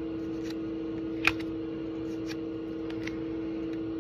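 Pokémon trading cards being slid one at a time from the back of a pack to the front, making soft snaps about once a second, the sharpest about a second in, over a steady hum.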